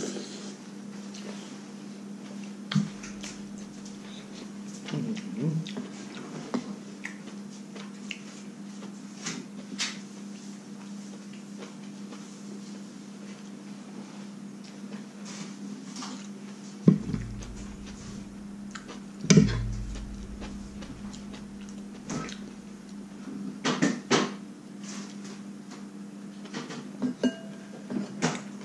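Metal spoon clinking and scraping now and then against ceramic bowls and a plate as a person eats, with two louder knocks a little past halfway, over a steady low hum.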